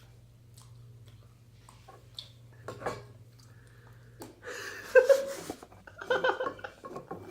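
A low steady hum stops about four seconds in, then people break into bursts of laughter in reaction to a joke.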